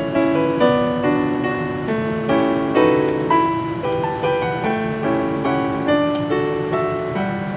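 Background piano music: a gentle, steady run of soft notes and chords.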